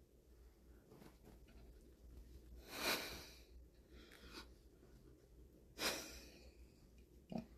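A person breathing out twice, soft noisy breaths close to the microphone, with a fainter one between them.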